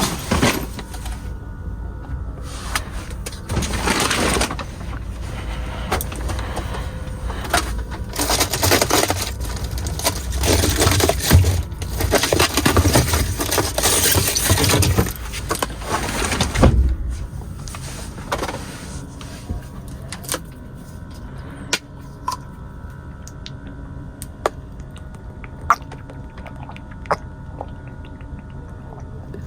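Driving noise inside the cab of a DAF XF truck: engine and road rumble, with loud swells of noise during the first half, then quieter steady running with small clicks and rattles.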